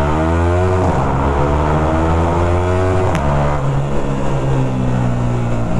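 Sport motorcycle with a loud aftermarket exhaust accelerating hard in second gear through a road tunnel. The exhaust note climbs in pitch over the first second and holds high, then falls to a lower, steadier note about three seconds in.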